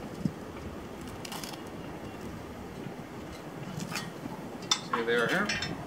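A few light metal clicks and knocks as the steel parts of a Packem trimmer rack are handled, over steady outdoor background noise. Near the end comes a short, louder sound with a wavering pitch.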